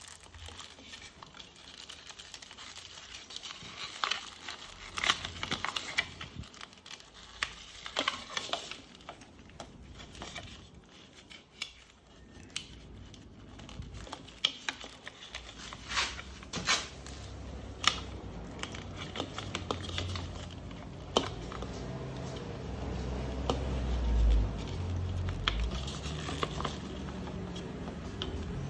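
Hand-work noises of parts being handled: scattered clicks and taps of plastic and metal with some crinkling. A low rumble builds through the second half and is loudest near the end.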